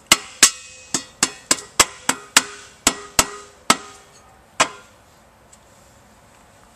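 Mallet tapping around the rim of a Grundfos CR10 pump's stainless steel sleeve to seat it fully in the pump base: about a dozen quick taps, each with a short metallic ring, stopping about four and a half seconds in.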